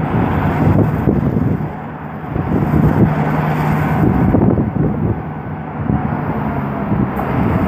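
Diesel switcher locomotive moving slowly with its slugs, the engine running with a steady low hum over a rumble.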